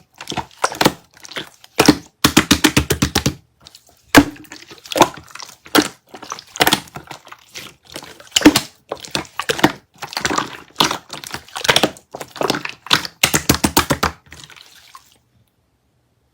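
Slime being squeezed and poked by hand: sticky popping and crackling clicks, some single and some in quick runs of several pops, stopping about fifteen seconds in.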